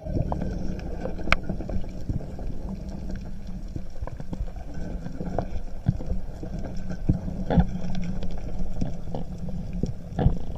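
Underwater sound picked up by a diver's camera: a steady low rumble of water movement with a faint hum, scattered sharp clicks and ticks, and two louder knocks in the second half.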